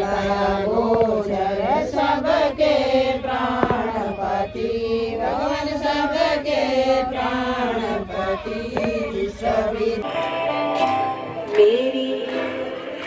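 Hindu devotional song (bhajan) sung to music, with chant-like vocal lines over a steady backing. About ten seconds in it changes abruptly to a different passage with longer held notes and no low backing.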